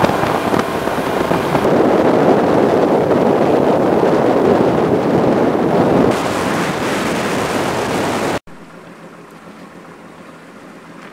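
Motorboat running at speed: loud wind on the microphone over the rush of engine and water. About two-thirds of the way through it cuts off suddenly to a much quieter steady low hum of the boat idling.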